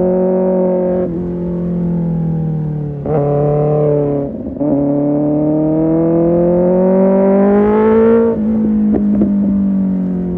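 Kawasaki ZX-6R inline-four with an Arrow Pro Race exhaust, under way. The throttle is held briefly, then shut at about a second in, and there is a quick blip around three seconds. Then comes a long pull, the engine note climbing steadily for nearly four seconds before the throttle closes and the exhaust crackles and pops on the overrun.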